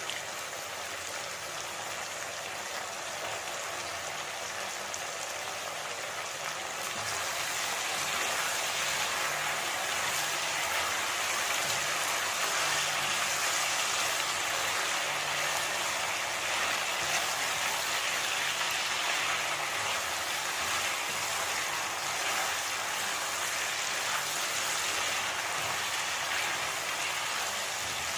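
Food sizzling in hot oil in a cooking pan, a steady crackling hiss that grows louder about seven seconds in.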